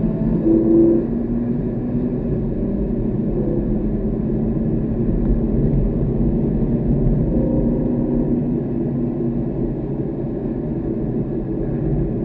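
Car driving at speed, heard from inside the cabin: a steady drone of engine and tyre and road noise, with the engine note shifting slightly but no hard revving.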